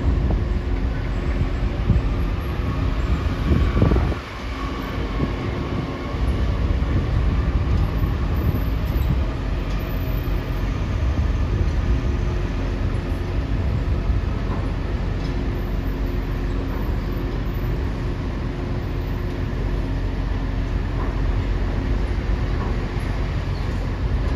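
Steady low mechanical rumble of heavy machinery with a faint steady hum, dipping briefly about four seconds in.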